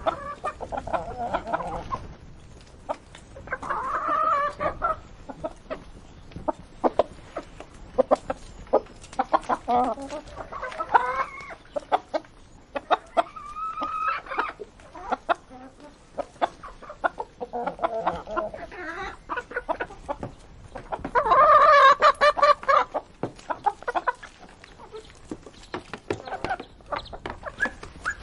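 Chickens eating: a steady patter of sharp pecking taps, with clucking calls coming and going. The loudest is a longer call about three quarters of the way through.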